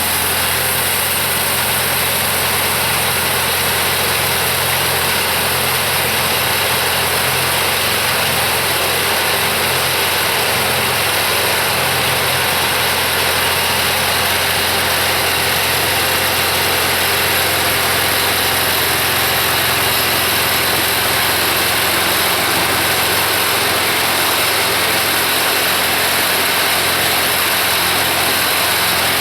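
Kubota V1305 four-cylinder diesel engine running steadily on a LogMaster LM2 sawmill, at an even, unchanging speed throughout.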